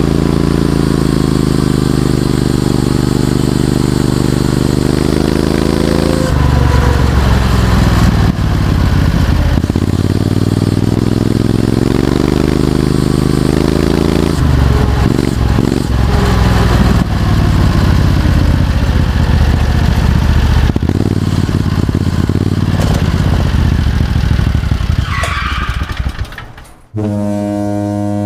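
Predator 670cc V-twin go-kart engine running on the move, its exhaust note rising and falling as the throttle is opened and eased off several times. It cuts off suddenly near the end, replaced by a steady, deep horn-like tone.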